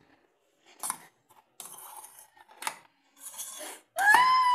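Metal spoon stirring and scraping batter inside a stainless-steel mixer-grinder jar: scattered clinks and short scrapes. About four seconds in comes a louder, brief high-pitched squeal that rises and then falls.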